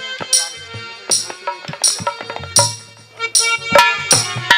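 Live Haryanvi folk stage music: a hand drum and jingling percussion beat a steady rhythm over a held melody line. About three seconds in the beat gets louder and busier.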